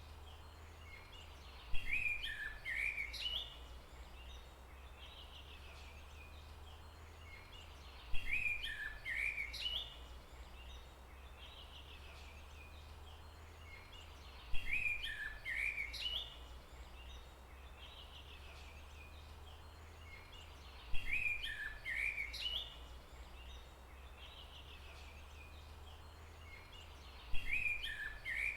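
A songbird sings the same short chirping phrase, about two seconds long, five times at even intervals of about six and a half seconds, over a steady low hum.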